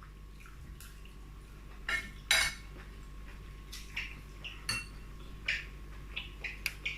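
Cutlery clinking and scraping against a plate during eating, a series of short, sharp knocks at uneven intervals, the loudest about two and a half seconds in.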